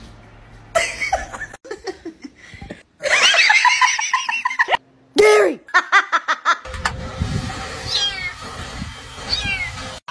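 A person laughing hard in quick repeated bursts for a couple of seconds. In the second half comes a low rumbling noise with two short high chirps.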